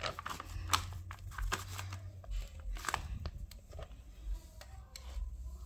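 Paper pages of a handmade journal being turned and handled: soft, irregular rustles and crinkles of paper.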